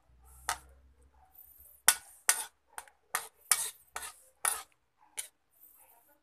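A ladle knocking and scraping against a metal wok while stirring chicken soup: about ten irregular clinks and taps, most of them close together in the middle.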